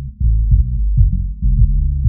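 Bass-boosted electronic music, low-pass filtered so that only the deep bass remains: sustained sub-bass notes stepping in pitch under a regular kick drum, with no highs at all. It is a subwoofer test track.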